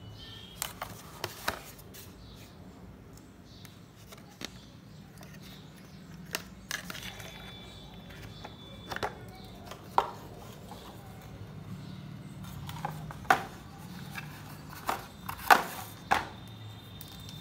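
Hard plastic drill-bit case and its steel bits being handled: scattered sharp clicks and knocks as bits are taken from their slots and the case is moved, the loudest knocks near the end.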